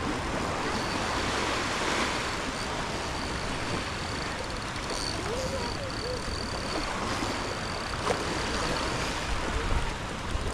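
Surf washing on the shore, a steady rushing noise, with a thin high whine running faintly through most of it and breaking off now and then.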